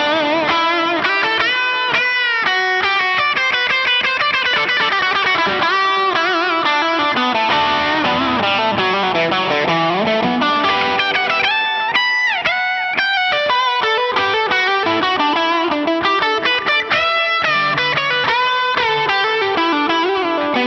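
Ibanez RG421HPAM electric guitar played through distortion: a continuous lead solo of quick note runs with some bent notes.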